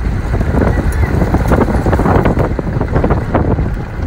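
Jeep driving on a rough dirt track: a loud low rumble of engine and tyres on gravel, with wind buffeting the phone microphone.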